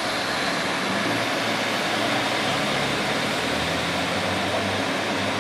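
Class 150 Sprinter diesel multiple unit rolling slowly into the platform. Its underfloor Cummins diesel engines run steadily under a rush of wheel noise, with a thin high whine above.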